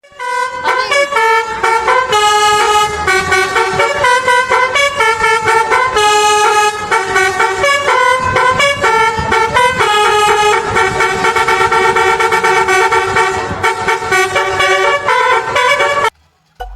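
Indonesian bus telolet 'basuri' horn, a set of pitched air horns, playing a quick melody of loud sustained notes that step up and down, cutting off suddenly near the end.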